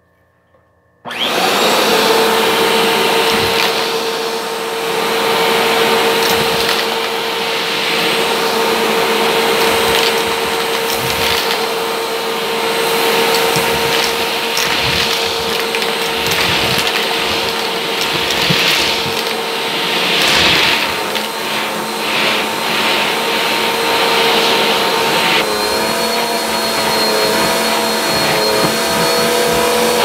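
Bissell upright vacuum cleaner switching on about a second in and running steadily with a whine, its hose sucking up pennies from a rug, with scattered clicks and clatters as the coins are pulled in. A little before the end the pitch of the whine shifts and wavers.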